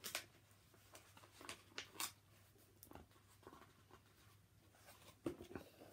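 Faint paper rustling and soft ticks of a hardback book's glossy photo pages being peeled apart and turned, the old plate pages stuck together.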